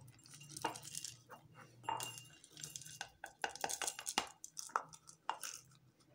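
Dried pomegranate seeds (anardana) being tipped from a plastic measuring cup into a glass jar: a run of irregular small clicks and rattles as the seeds hit the glass.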